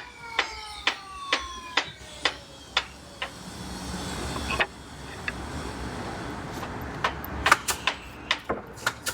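Repeated hammer blows, about two a second, then a quicker, uneven run of blows near the end. A tone glides downward in the background at the start.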